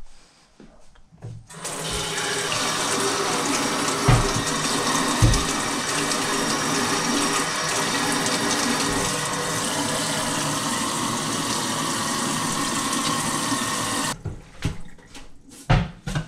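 Kitchen tap running into a stainless steel sink while sticky dough is washed off hands under the stream; the water comes on about a second and a half in and is shut off suddenly near the end. Two low thumps while it runs, and a few short knocks after it stops.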